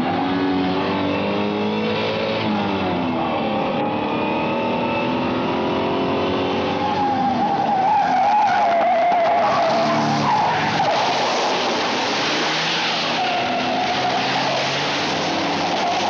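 Opel Commodore GS/E's straight-six engine revving hard, its pitch rising and falling with gear changes. From about seven seconds in, the tyres squeal through a long bend while the engine keeps running high.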